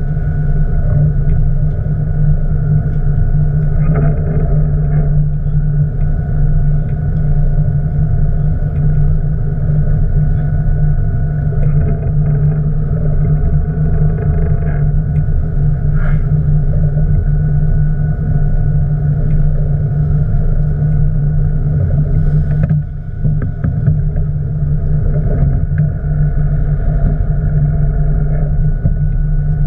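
Boat engine running steadily, a loud low rumble that dips briefly about 23 seconds in.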